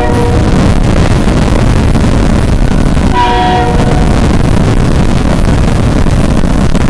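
Loud rumbling noise of a passing train, with a short blast of a multi-tone train horn about three seconds in. The audio is boosted to a very high volume.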